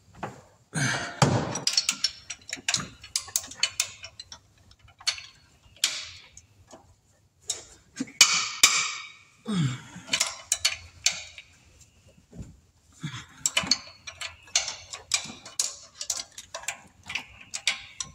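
Hand ratchet clicking in quick runs as cylinder head bolts are backed out of a 5.7 Hemi V8, with a few louder knocks of the tools against metal.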